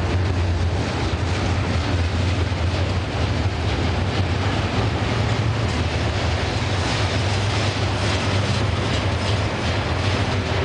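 Double-stack intermodal freight cars rolling past at close range: a steady rumble of steel wheels on rail with repeated wheel clicks.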